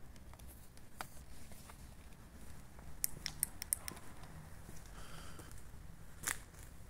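Scattered sharp clicks and taps over a faint low rumble, with a quick run of several clicks about three seconds in and a single louder one near the end.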